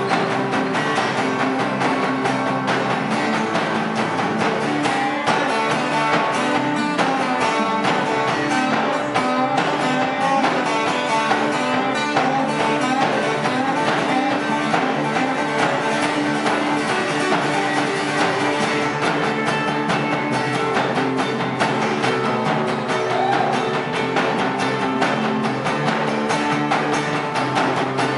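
A live band playing: acoustic guitar strummed over electric bass, with no sung words heard.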